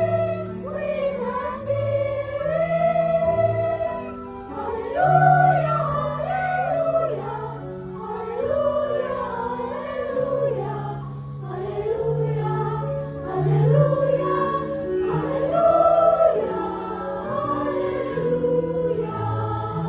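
Church choir singing in several parts, the upper voices wavering with vibrato over steady held low notes.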